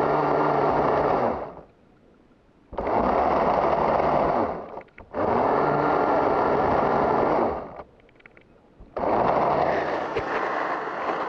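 Motorised pole saw cutting an overhead branch, run in four bursts of about two seconds each that start and stop abruptly, with near silence between them as the trigger is released.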